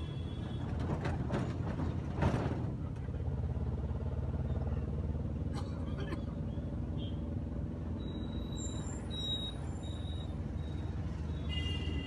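Street traffic: a steady low engine rumble, with a vehicle passing loudly about two seconds in.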